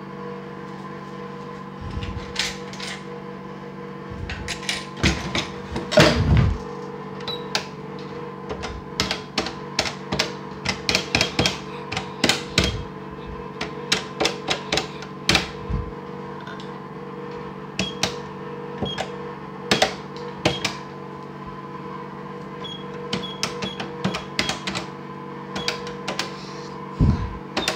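Plastic toy cash register being handled: irregular clicks and clacks of its keys and cash drawer, with a few short high beeps in the second half. A steady hum runs underneath.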